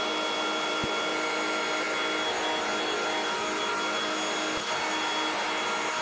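Ship's engine-room machinery running: a steady, loud hiss with several thin steady whining tones over it.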